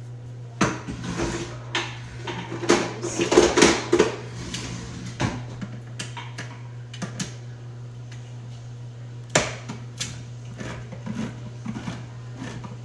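Clinks and knocks of an opened metal can of whole kernel corn handled at a kitchen sink, with a splashing rush over the first few seconds as the corn's liquid is drained off, and a sharp knock about nine seconds in. A steady low hum runs underneath.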